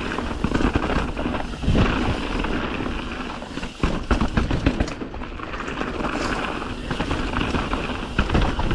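Mountain bike moving over a rocky dirt trail: irregular crunching, knocking and rattling over a steady low rumble.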